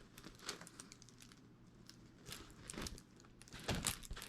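Faint rustling and crinkling with scattered light clicks as a diamond painting canvas and its packaging are handled, a little louder near the end.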